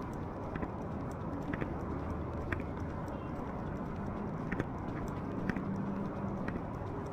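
Footsteps of a person walking on hard pavement, an even sharp step about every half second, over a steady outdoor rush of noise.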